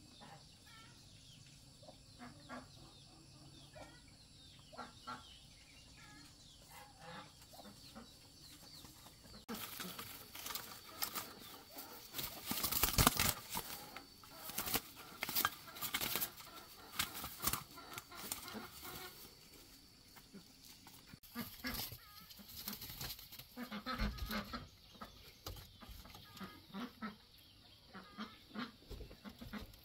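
Chickens clucking, with a spell of wings flapping and clattering against a bamboo cage of pigeons, loudest about halfway through.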